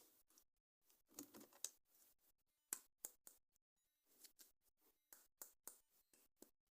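Faint, irregular clicks, taps and short rustles of plastic toys and packaging being handled during an unboxing.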